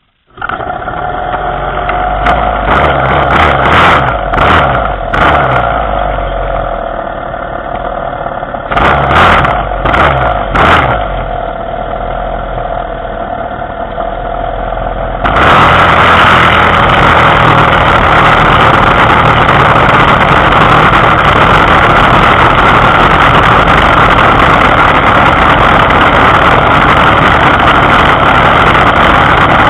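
Small engine on a motorized bicycle starting abruptly and running at idle with several short surges, then running steadily and louder as the bike rides off about halfway through, with wind noise on the microphone.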